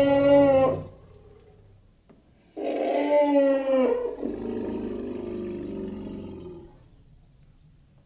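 Elephant calls. One loud, brassy call ends under a second in. A second call starts about two and a half seconds in, slides slightly down in pitch over about a second and a half, then carries on as a lower, rougher call that fades out about seven seconds in.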